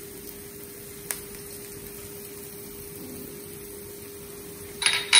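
Steady low hum with one even tone over a faint hiss. There is a single light click about a second in and a brief clatter near the end.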